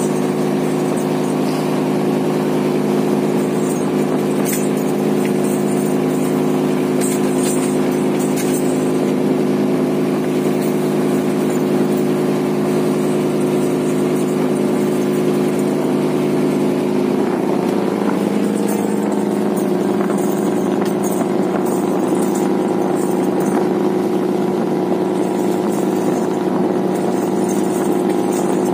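A fishing trawler's engine runs steadily under way, with water rushing along the hull. The engine's note shifts a little over halfway through.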